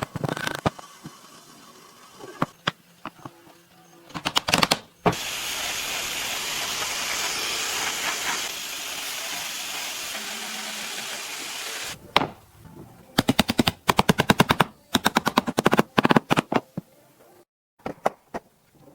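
Woodworking sounds: scattered knocks, then a steady hissing tool noise lasting about seven seconds. After it come bursts of rapid, evenly spaced clicking, about ten clicks a second.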